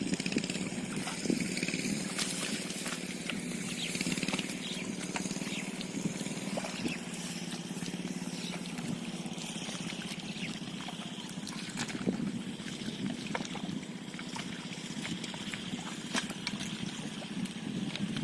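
Muddy water splashing and trickling as hands work through it, with scattered small splashes over a steady hum.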